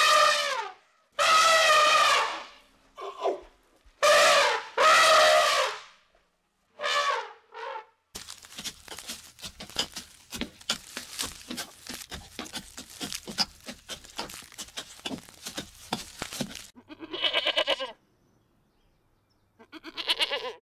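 An animal calling several times in long, loud, wavering cries. Then comes a stretch of rapid, dense clicking and rustling, and two more calls near the end.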